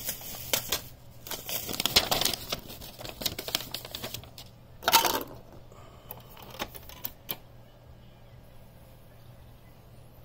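Plastic clicks and clatter from the top-loading CD compartment of a Sony CFD-S01 boombox being handled: the lid opened and a CD-R set on the spindle, with one louder clatter about five seconds in. After a quieter stretch there is a click near the end as the lid is pushed shut.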